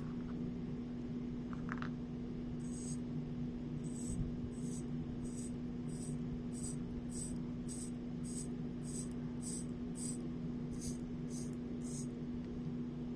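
Short scratchy strokes, about sixteen at roughly two a second, over a steady low hum: plausibly the crown of a mechanical chronograph watch movement being wound by hand, a movement that does not start running once wound.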